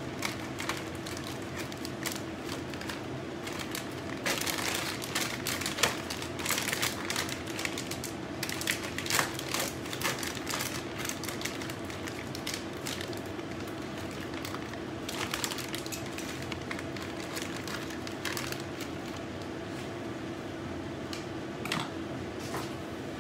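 Plastic bags of frozen chopped spinach crinkling and rustling as they are handled, with scattered clicks and taps in irregular bursts. A steady low hum runs underneath.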